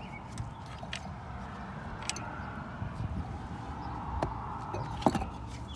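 Scattered light clicks and knocks of rubber and braided fuel hoses and plastic fittings being handled in a car's engine bay, the sharpest one about five seconds in, over a steady low background rumble.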